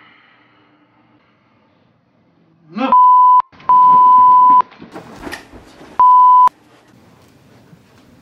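Three loud censor bleeps, steady one-pitch tones that switch on and off abruptly: a short one about three seconds in, a longer one of about a second, then another short one. They are dubbed over a man's startled yelling as he is jolted awake, with his rising cry just before the first bleep and shouting between them.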